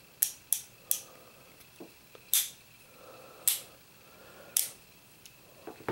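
Cimarron Model P Jr. .22 single-action revolver's 10-shot cylinder clicking as it is turned by hand with the hammer on the loading notch and the loading gate open: three quick clicks, then one about every second.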